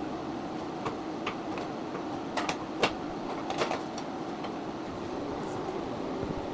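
Steel rack parts clicking and clinking a handful of times as they are handled during assembly, the sharpest click near the middle, over a steady hum.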